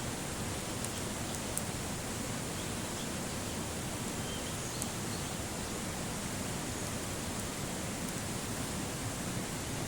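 Steady rushing outdoor noise, even across low and high pitches, with a few faint, sharp high ticks scattered through it.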